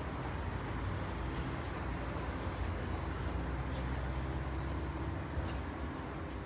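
Steady low rumble with a faint hiss, with no distinct event: wind on a phone microphone in an open Ferris wheel gondola.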